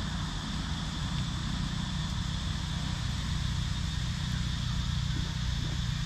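Steady forest ambience: a continuous low rumble under an unbroken high-pitched insect drone.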